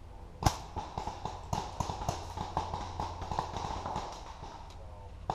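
Paintball markers firing: a run of sharp, irregular pops, several a second, with one louder crack about half a second in.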